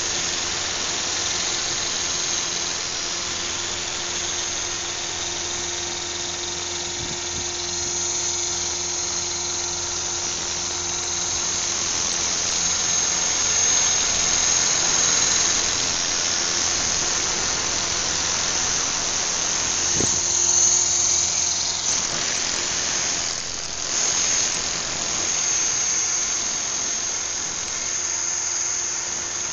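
Radio-controlled model helicopter running with its rotor spinning, a steady high-pitched motor whine over the rotor noise.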